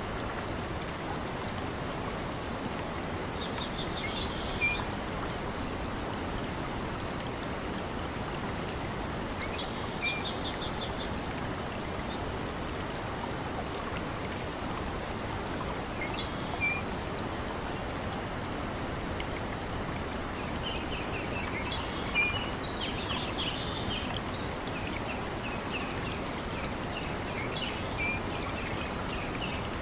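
A steady rush of water, like rain or a stream, with small birds chirping and trilling every few seconds, busiest in the second half.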